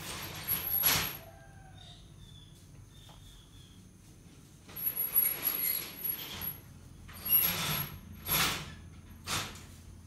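Handling noise in several separate bursts of scraping and rustling. One comes about a second in, a longer one about halfway through, and three shorter, sharper ones near the end.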